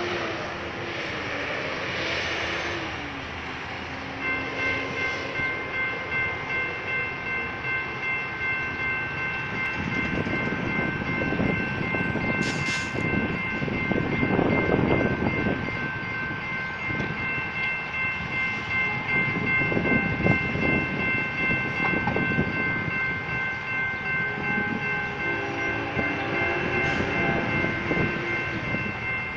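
Railroad grade-crossing warning bell ringing steadily with a regular pulse, starting about four seconds in, over a low background rush.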